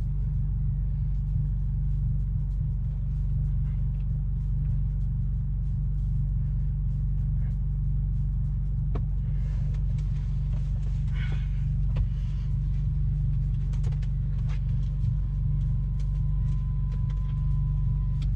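Car engine idling, heard as a steady low rumble from inside the cabin, with scattered small clicks and rustles of cable and trim being handled. A thin steady tone sounds for the last few seconds.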